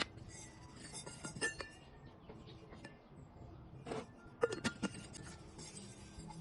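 Light clinks and taps of a stainless steel Aquaflask tumbler and its parts being handled. The taps come in scattered strokes, with a cluster about a second in and another around four to five seconds in.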